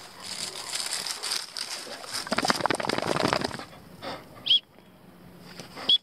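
Dry stubble rustling and crackling as a wirehaired vizsla runs up close, loudest between about two and three and a half seconds in. Then two short, high-pitched chirps, one about four and a half seconds in and one near the end.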